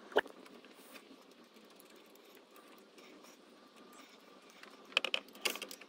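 A single metallic click, then faint background noise, then a quick run of sharp metal clicks and clinks near the end: a socket wrench on a long extension bar working the cylinder head bolts of a Rover K-series engine.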